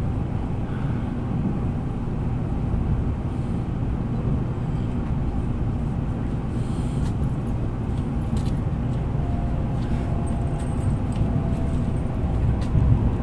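Cabin noise inside an N700 series Shinkansen train, slowing as it nears its station stop: a steady low rumble of the running gear, with a few faint clicks in the second half and a faint whine near the end.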